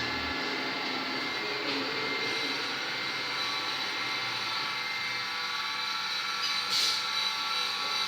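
Metal lathe running steadily with a whine of several fixed tones while its cutting tool turns an internal groove in a new steel camshaft bearing cap.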